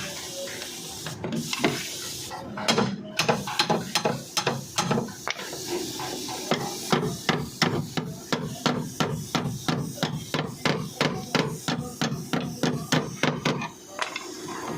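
Hammer tapping on a car's sheet-metal body panel to work out a dent: a long run of quick, regular blows, about three a second, that stops near the end.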